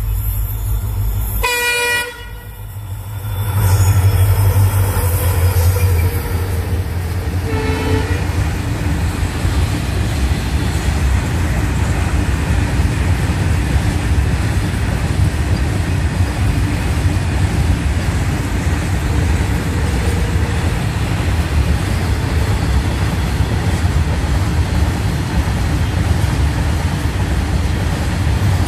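Freight train of covered wagons rolling past at speed, a loud steady rumble of wheels on rail. A short train-horn blast sounds about two seconds in and a briefer toot near eight seconds, just before the rumble swells to its loudest.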